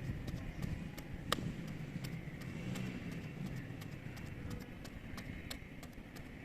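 Tractor engine running low and steady while it works the soil, with scattered sharp clicks and knocks over it and one sharper crack about a second and a half in.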